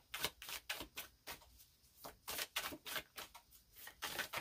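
A deck of oracle cards being hand-shuffled: quick, irregular papery clicks and slaps as the cards strike one another, about four or five a second.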